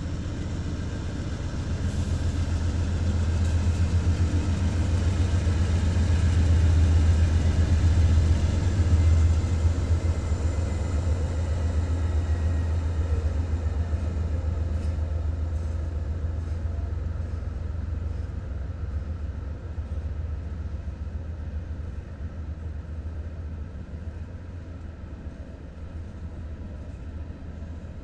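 Diesel-electric freight locomotives of a Norfolk Southern consist running past at close range, their engines making a deep, steady drone. It swells to its loudest about eight seconds in, then slowly fades as the units move on.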